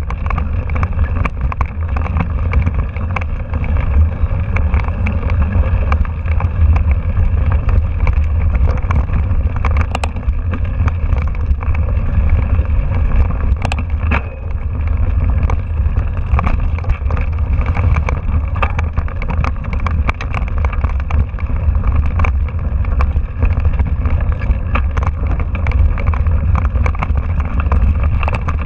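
Mountain bike riding over a rough dirt trail, heard from a handlebar-mounted camera: a steady wind rumble on the microphone, with the bike's frame and parts rattling and knocking over the bumps in quick, irregular clicks throughout.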